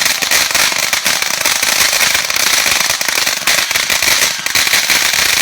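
Fireworks crackling densely and without a break, many small sharp pops a second, with no single big bang standing out.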